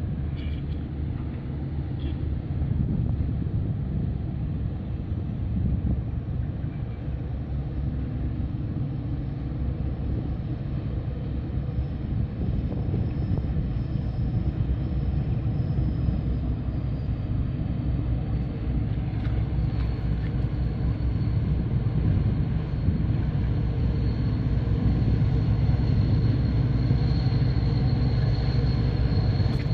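Low, steady engine rumble of boats at a harbour entrance, growing louder toward the end as a patrol boat runs close past.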